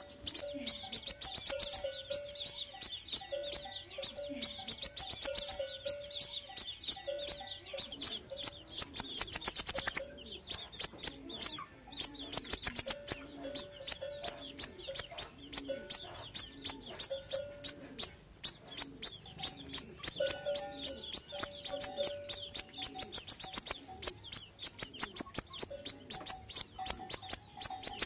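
Sunbird (the 'fire-breasted' sunbird of the title) singing: a fast, unbroken series of high, sharp chips, several a second, with a lower short note repeated underneath. It stops briefly about ten seconds in, then carries on.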